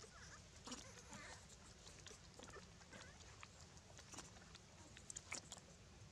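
Quiet scene with a few faint, soft high calls from long-tailed macaques about a second in, and scattered sharp clicks and rustles, a cluster of them near the end.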